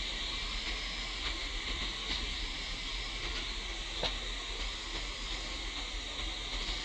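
Steady high-pitched drone of forest insects that swells and fades slightly, over a constant low hum, with a single sharp click about four seconds in.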